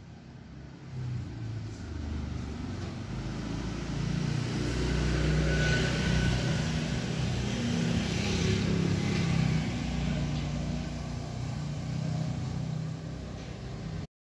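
A motor vehicle's engine rumble, building over the first few seconds and then slowly easing off.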